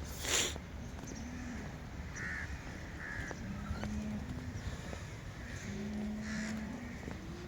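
Crows cawing a few times in short calls over a steady low rumble, with a short loud burst of noise about half a second in.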